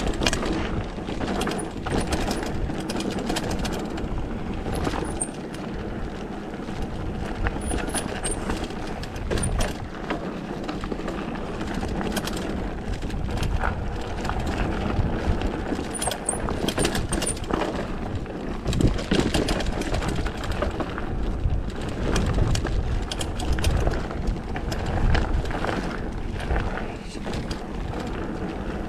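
Mountain bike rolling fast down a trail: steady tyre noise with the bike rattling and clattering over bumps.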